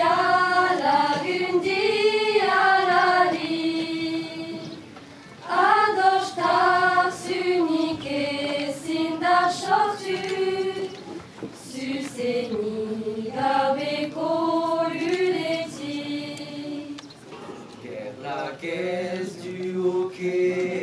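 A choir of women's voices sings a slow song in Souletin Basque, in long phrases with short breaths between them.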